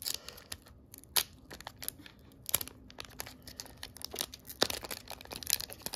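Foil wrapper of a Pokémon card booster pack crinkling and crackling as fingers pick at its sealed top edge, trying to tear it open. Scattered sharp crinkles, coming thicker in the last couple of seconds.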